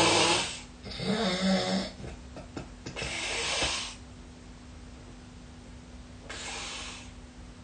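A sleeping person snoring heavily. A loud snore fades out just after the start, and another with a low buzzing vibration follows about a second in. Softer, noisier breaths come around three seconds and again near the end.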